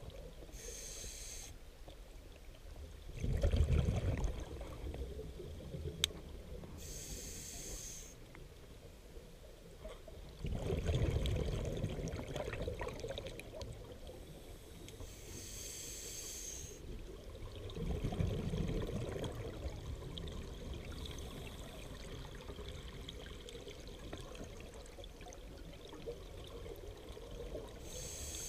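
Scuba diver breathing through a regulator underwater: a short hiss of inhaled air through the demand valve, then a louder low gush of exhaled bubbles, about three slow breaths several seconds apart.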